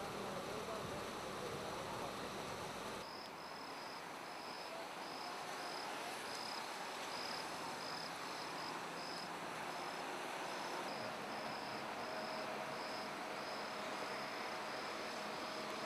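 Insects chirping: a steady run of short, high chirps about twice a second, starting about three seconds in, over a steady background hiss.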